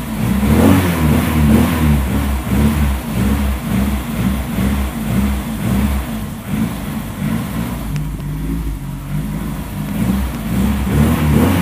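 Volkswagen Voyage's carbureted AP 1.6 four-cylinder engine being revved, loud and echoing off the enclosed garage walls. The revs climb and waver in the first few seconds, fall back lower through the middle, and rise again near the end.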